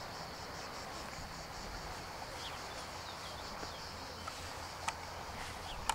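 Outdoor summer ambience: insects chirring steadily in a high band, with a few faint bird-like chirps and a couple of faint clicks near the end.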